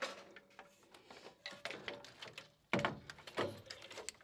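Light knocks, taps and scraping as a new aluminum radiator is lowered by hand into a Jeep Wrangler JK's engine bay, its frame bumping the radiator support. The loudest knocks come a little under three seconds in.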